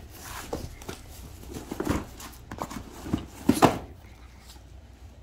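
Scattered knocks, taps and crinkles of a package being handled and opened, the loudest cluster about three and a half seconds in.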